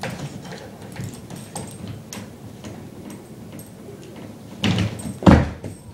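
A small dog climbing a wooden-framed mesh baby gate: claws scrabbling and the gate rattling in a run of light clicks, then a burst of noise and a heavy thump a little before the end as the dog goes over and drops down.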